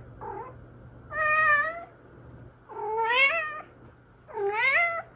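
A cat meowing: a faint short call, then three loud drawn-out meows, each bending up and down in pitch.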